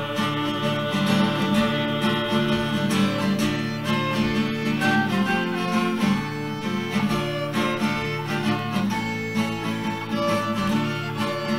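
Instrumental break in a bluegrass-style gospel song: acoustic guitar and fiddle play on at an even level, with no singing.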